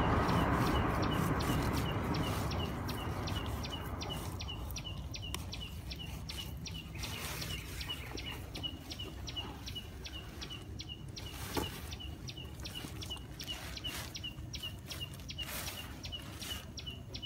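A rapid, evenly repeated high-pitched chirp, about four a second, throughout. At the start a loud, even noise dies away over the first four seconds, and a few brief rustles come later.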